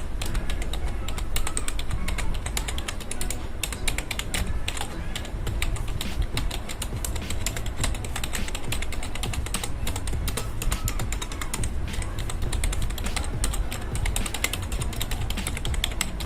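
Continuous fast typing on an Amkette EvoFox Fireblade gaming keyboard: a dense, unbroken stream of key clicks, many a second, over a low background rumble.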